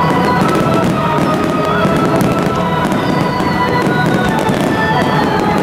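A dense fireworks volley: many aerial shells bursting, with sharp cracks and bangs following each other quickly throughout. Music plays alongside.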